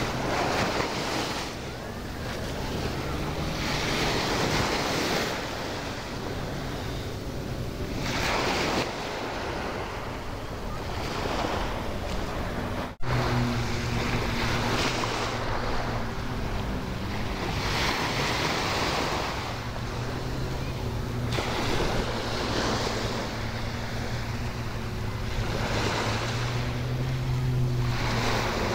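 Sea waves breaking on a sandy beach, the wash surging and fading every three or four seconds. A steady low engine hum runs underneath and grows louder after a brief dropout about halfway through.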